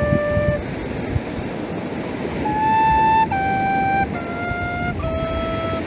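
Background music: a flute-like wind instrument playing slow, held single notes. One note ends about half a second in, then after a pause four long notes step downward in pitch.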